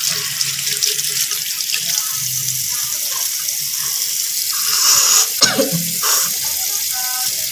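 Tap water running steadily into a sink, with a short louder burst about five seconds in.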